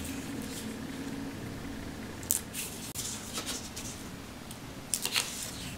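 Cardstock being handled and slid into place on a page: short paper rustles and scrapes, with sharper crinkles a little over two seconds in and again about five seconds in.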